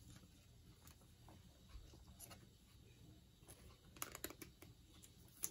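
Near silence, with a few faint clicks and rustles of trading cards being thumbed through in the hands, a small cluster of them about four seconds in.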